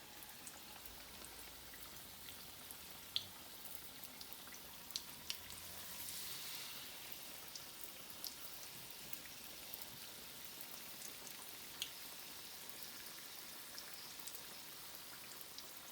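Battered potato pieces deep-frying in hot oil in a karahi: a faint, steady sizzle with scattered crackling pops, swelling a little about six seconds in.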